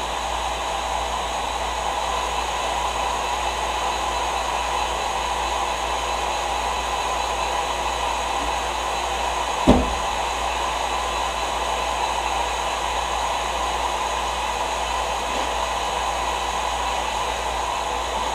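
Electric Maxant honey extractor running with a steady motor whir and low hum while it spins frames. A single short knock about ten seconds in.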